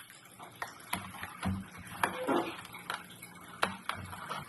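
Holes and pieces being punched out of a foam-board 3D puzzle sheet: a string of sharp clicks and snaps with brief squeaky rubbing of the foam.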